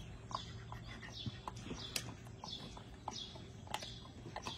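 A songbird repeating a short high chirp that slides downward, over and over about every half second or so, with a few sharp clicks among the calls.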